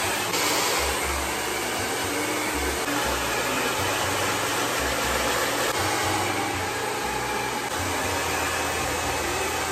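Handheld hair dryer blowing steadily, drying wet hair.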